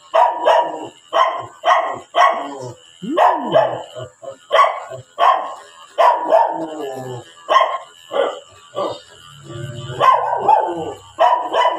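A dog barking over and over, about one to two barks a second, with a steady high hum from electric dog clippers running underneath.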